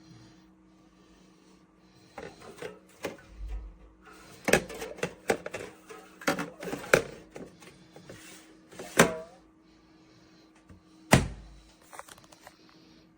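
A run of sharp knocks and clunks, as of objects being handled or set down, loudest about four and a half, nine and eleven seconds in, over a steady low hum, typical of a thermoelectric mini fridge's cooling fan running.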